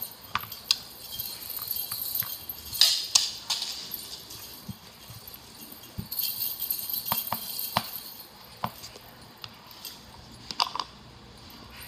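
A strand of Christmas garland hung with small jingle bells being swung and shaken, jingling and clicking in irregular bursts.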